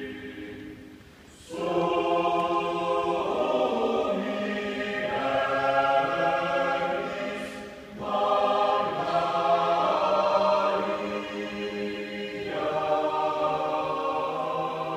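Choir singing a slow sacred hymn in long held chords, with short breaks between phrases, in a large church.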